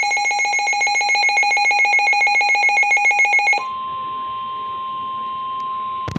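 Emergency Alert System attention signal: a loud, steady two-tone alarm with a fast buzzing pulse. About three and a half seconds in it switches to a quieter single steady tone, the weather-radio warning alarm tone, which ends in a sharp click near the end.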